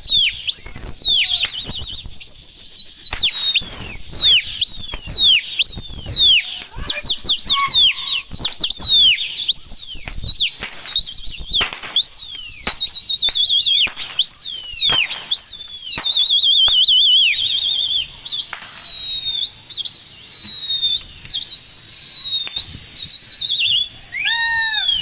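Shrill whistling, over and over: swooping falls and warbling trills, the kind pigeon flyers use to drive and call their birds. Sharp clicks come in between. The whistles thin to separate long warbles in the later part.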